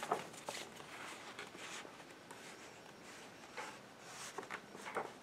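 Faint rustling of magazine pages being handled and turned, with a few soft ticks and brushes of paper.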